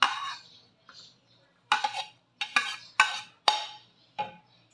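A metal spatula scrapes vegetables off a plate into a wok, then strikes and scrapes the wok in about six sharp clanks as it stirs the vegetables into the grated-coconut dressing. The heat is off, so there is no sizzle.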